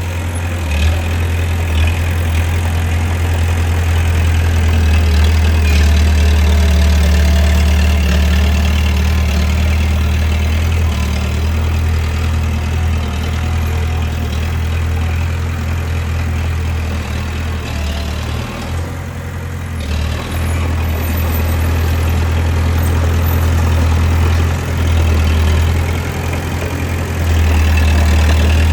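Bulldozer's diesel engine running as a deep, steady drone that dips briefly about two-thirds of the way through.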